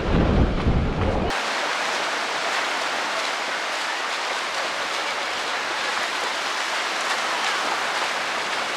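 Wind buffeting the microphone for about the first second, cutting off suddenly to a steady rush of sea water washing and splashing.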